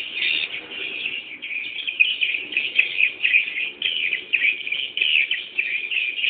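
Swiftlet chicks chirping without pause, a dense twitter of many short, high, overlapping calls, as they wait for a parent to return.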